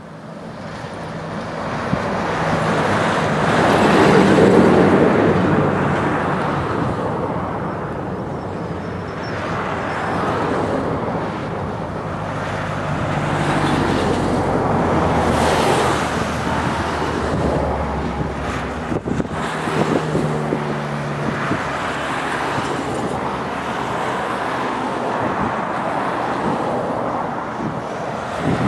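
Road traffic passing, loudest about four seconds in, with wind buffeting the microphone. In the second half an electric commuter train draws closer along the track, adding a low rumble.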